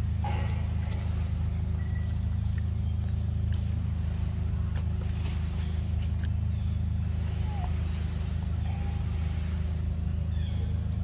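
A steady low engine hum, made of several even tones, runs without change and is the loudest sound. Faint scattered clicks and a few short high chirps sit above it.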